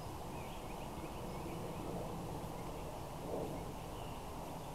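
Faint birds chirping a few times over steady low wind noise, with one soft brief rustle about three seconds in.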